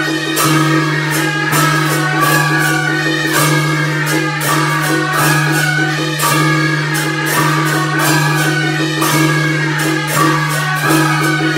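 Background music: a melody played over a steady low drone, with percussion hits recurring throughout.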